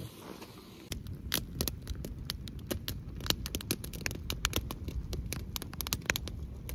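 Elk sausage and potatoes frying: irregular crackling pops of spattering fat over a low steady rumble, starting about a second in.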